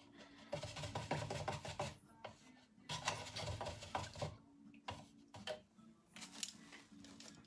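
Paintbrushes being swished and knocked about in a cup of rinse water, washing the paint out. It comes in two bursts of rapid little clatter about a second and a half each, and a shorter one later.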